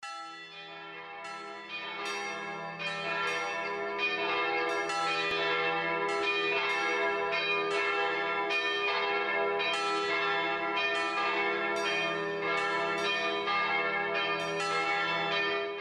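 Church bells pealing, many strikes in quick succession ringing into one another over a steady low hum, growing louder over the first few seconds.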